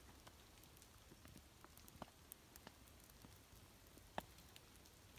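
Faint, irregular ticks of rain mixed with snow falling on the surfaces around, over a quiet outdoor hush, with one louder drop about four seconds in.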